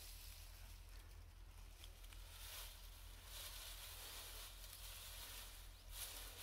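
Faint rustling and crackling of dry twigs and brush as an armful is handled and laid onto a stick frame, in a few short bursts over a steady faint hiss.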